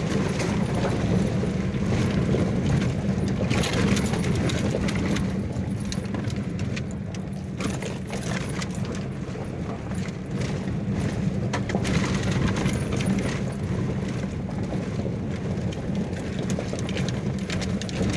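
Car running slowly over a rough, rocky dirt track: the engine gives a steady low hum, with frequent irregular clicks and knocks from stones and gravel under the tyres and the body rattling, heard from inside the cabin.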